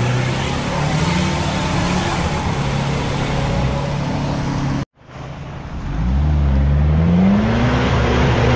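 Off-road 4x4 engines working in mud. First an engine runs steadily under load as an SUV drives away. After a sudden break about five seconds in, a Jeep Cherokee's engine revs up and down, rising in pitch, as it drives through deep mud.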